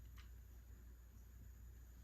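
Near silence: a low steady hum with one faint, light click just after the start.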